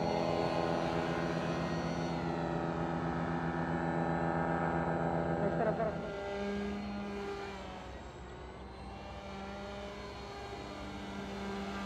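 Motor and propeller of a radio-controlled paramotor model running steadily at power, a buzzing tone with many overtones. About six seconds in it changes pitch and grows quieter, then louder again near the end as the model flies.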